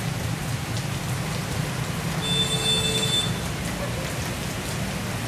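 Heavy rain falling steadily on a street, over a low rumble of passing traffic. A brief high-pitched tone sounds for about a second, roughly two seconds in.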